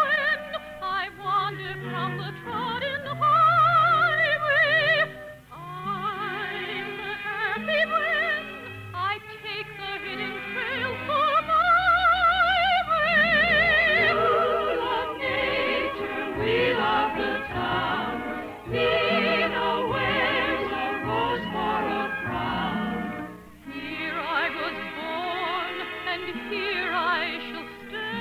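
Operetta singing with wide vibrato over orchestral accompaniment, on a narrow-band old radio recording.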